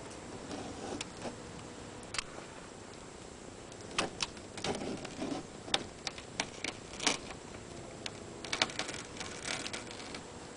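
A windshield pull knife being drawn through the glue bead under the windshield's edge, cutting the glass out: irregular sharp clicks and short scraping strokes, in little clusters.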